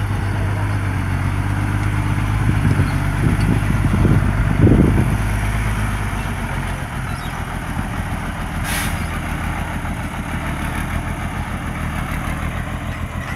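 Dump truck's diesel engine running as the truck drives over rough ground. The engine swells to a louder rev between about two and five seconds in, then settles back. A short hiss comes about nine seconds in.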